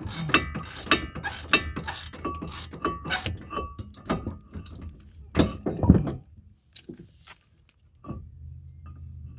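Hand tools working on steel brake hardware: a quick run of metallic clicks and clinks with ringing tones, then two heavier knocks about five and a half and six seconds in.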